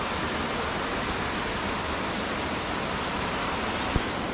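Steady rush of a waterfall pouring into a pool. A single brief low bump comes near the end.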